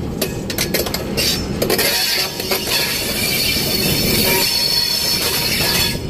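Passenger train's steel wheels rumbling and squealing on a tight curve: a run of sharp clicks in the first two seconds, then a steady high-pitched squeal over the rumble from about halfway.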